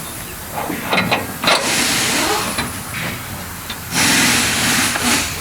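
Bursts of loud air hissing, with a few sharp metallic clicks of tools between them.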